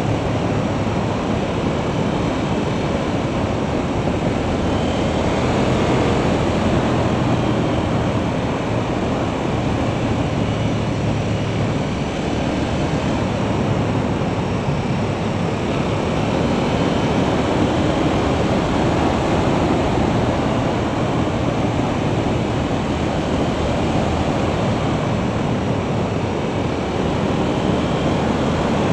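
Steady wind rush over an action camera's microphone on a motorcycle leaning through curves at about 35–40 mph, with a low engine note underneath.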